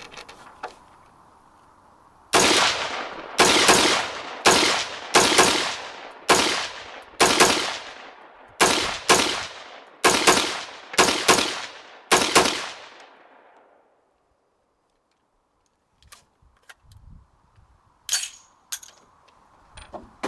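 An M4-style AR-15 rifle fired about fifteen times in quick, uneven succession, each shot trailing off in a short echo. A few light metallic clicks and clanks follow as the rifle is handled.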